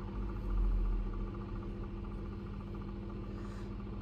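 A steady low background hum with a few fixed tones, and a brief low rumble from about half a second to a second and a half in.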